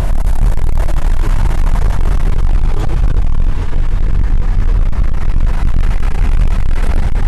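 Loud, steady low rumble of road and wind noise inside a car moving at highway speed, heavy enough to swamp the recording.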